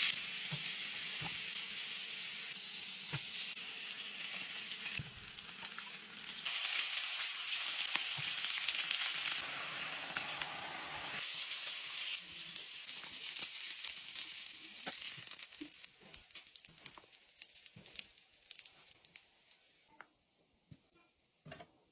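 Food frying in a hot pan, a steady sizzle that eases briefly a few seconds in, comes back, then dies away. Scattered light knocks and clicks follow near the end.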